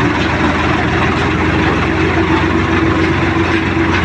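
Farmtrac 6055 tractor's diesel engine running steadily, a constant drone with a steady hum above the low rumble.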